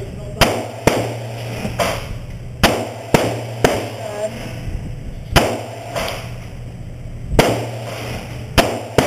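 Gunshots on an indoor range, about nine sharp reports at uneven intervals, among them a 9mm semi-automatic pistol being fired. A steady low hum runs underneath.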